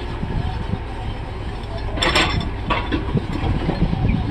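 Backhoe loader engine running with a steady low rumble, with a few sharp knocks in the second half.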